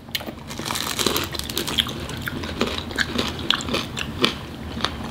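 Biting into and chewing a toasted garlic crostini, a quick run of small crunches one after another.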